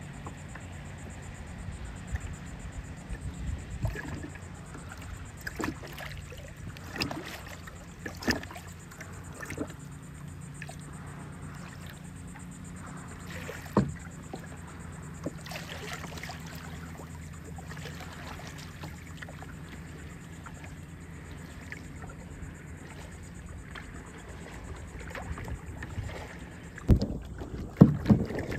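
Kayak paddle strokes: the blade dipping and splashing in the water every second or so, over a steady low rumble. Louder splashes and knocks come close together near the end.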